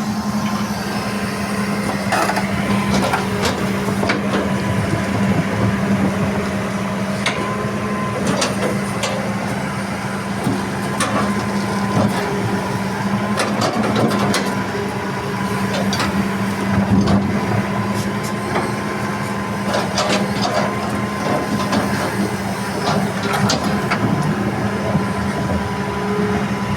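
Excavator's diesel engine running steadily under load while it digs and loads earth and limestone into a dump truck, with repeated knocks and clatter of rock and soil striking the bucket and truck bed.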